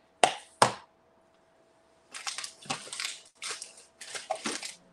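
Two sharp knocks of craft supplies being set down on a tabletop, then about three seconds of rustling and crinkling as supplies are rummaged through.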